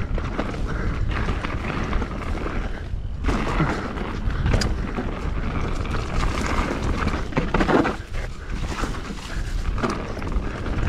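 Mountain bike riding down a dirt trail: a steady low rumble of wind on the microphone under the hiss of tyres on dirt and rapid clicks and knocks of the bike rattling over bumps, with a short lull about three seconds in.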